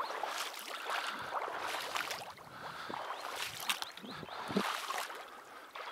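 Irregular splashing and sloshing of marsh water, uneven strokes from something moving through it.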